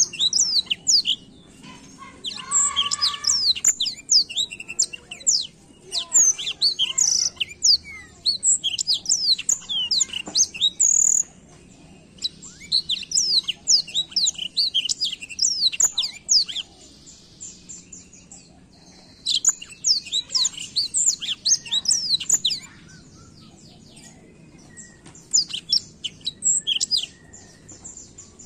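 Blackthroat (black-throated canary) singing a fast, twittering song of rapid high chirps and trills, in long bursts broken by a few short pauses.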